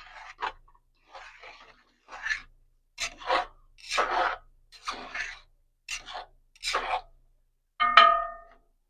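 A fork scraping and stirring through rice and peas in a pot, in short strokes about once a second. Near the end the fork strikes the pot with a ringing clink.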